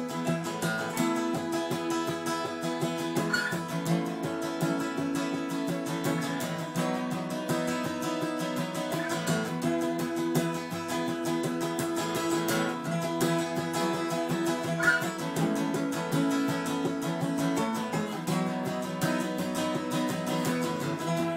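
Two acoustic guitars strummed together in a steady rhythm, an instrumental passage with no singing.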